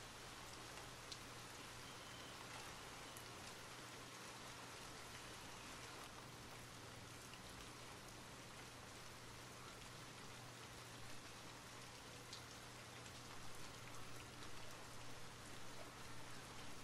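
Steady rain falling, soft and even, with a few faint ticks of single drops.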